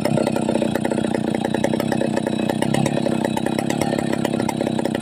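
Chainsaw engine running steadily at an even speed.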